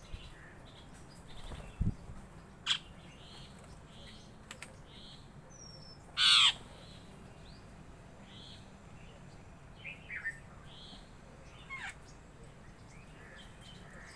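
Birds calling: many short, repeated chirps, with a few sharp calls and one loud harsh call about six seconds in. There is a single low thump near two seconds.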